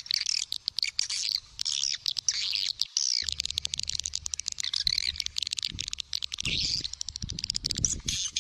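Birds chirping rapidly and continuously, in many short, high, arched chirps several times a second. In the second half low thumps and rumbling sit under the chirping.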